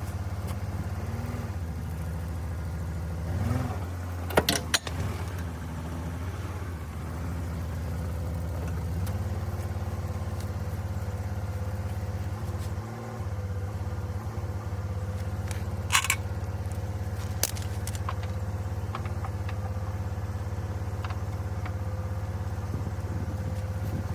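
Nissan Maxima's engine idling steadily, with a few sharp clicks or knocks, one about four and a half seconds in and two more around sixteen and seventeen seconds in.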